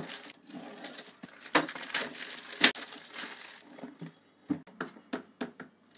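Plastic courier mailer crinkling and rustling as it is opened and the cardboard box inside is pulled out, with a run of sharp taps and clicks in the last couple of seconds.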